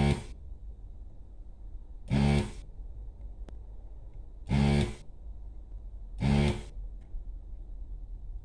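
Vacuum pump of a desoldering tool buzzing in short bursts, about half a second each, four times roughly two seconds apart, as solder is sucked off the LCD's pins one after another. A steady low mains hum runs underneath.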